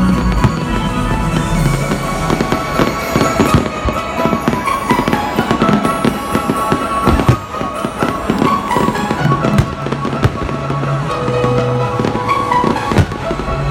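New Year's Eve fireworks going off in a dense, continuous barrage of bangs and crackles, with music playing loudly underneath.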